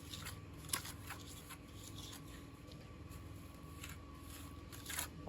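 Faint scraping with a few light clicks, typical of hand tools and stone being worked during stone walling, most likely a trowel on mortar and stone.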